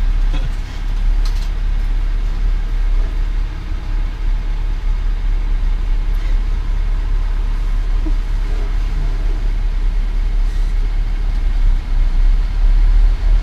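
Ford F-350 diesel pickup's engine idling, a steady low rumble heard from inside the cab.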